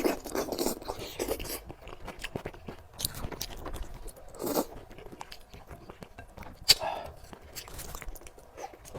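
A person chewing and biting food close to the microphone, mukbang-style: many short, irregular mouth clicks and bites, with one sharp, loud click about two-thirds of the way through.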